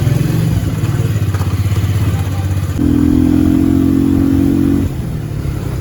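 Motorcycle engine running while riding. About three seconds in, a louder steady tone sounds over it for about two seconds and then stops.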